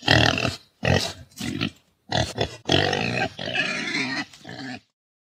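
Pigs calling: four or five short calls, then a longer run of calls that cuts off suddenly near the end.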